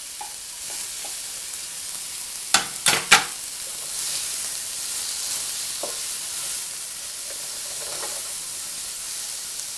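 Ham, shrimp and green onion sizzling in oil in a nonstick wok as they are stir-fried with a wooden spatula: a steady hiss of frying. Three sharp knocks come about two and a half to three seconds in.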